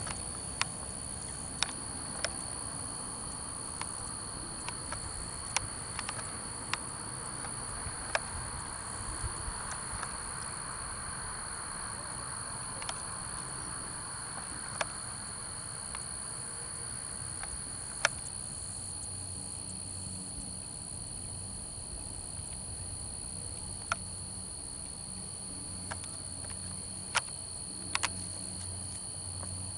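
Steady, high-pitched chorus of night insects, crickets or katydids, with scattered sharp clicks and a low hum coming in about two-thirds of the way through.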